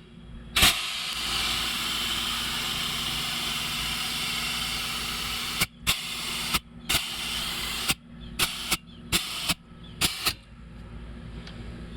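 Compressed air hissing steadily from a Husky air compressor's chuck into a truck tire as it is inflated toward 35 psi. Past the middle, the airflow is stopped and started in short bursts, with a series of sharp clicks, before it stops near the end.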